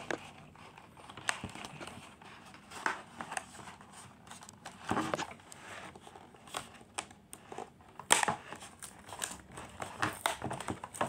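Plastic toy packaging crinkling and clicking as hands work a toy train out of its box tray, in irregular rustles and clicks, the loudest a sharp snap about eight seconds in.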